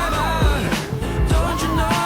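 Pop song playing as background music, with a gliding sung melody over a steady beat.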